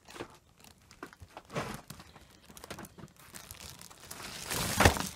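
Clear plastic bag crinkling and rustling in irregular bursts as it is handled around a plastic toy pirate ship, with the loudest rustle near the end.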